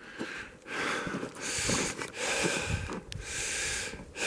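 A person breathing heavily close to the microphone: a quick run of noisy, hissing breaths in and out, about one a second.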